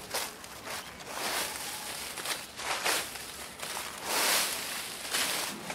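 Footsteps through a thick layer of dry fallen leaves, the leaves rustling with each step, about one step a second.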